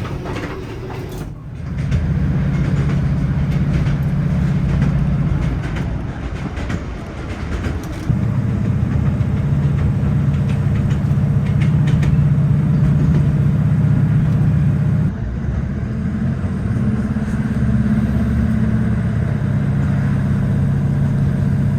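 Diesel passenger train running, a steady low engine drone under rumbling wheel and track noise; the engine note shifts a few times as the power changes.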